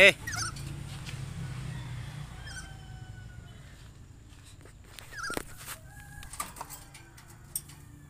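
Black-capped lory calling in short squawks and whistles, with the loudest squawk about five seconds in, and a few sharp clicks near the end.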